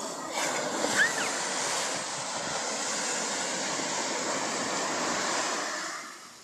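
Ocean surf breaking and washing up the sand: a steady rush of foamy water that swells in early and fades away near the end. A brief high-pitched squeal cuts through about a second in.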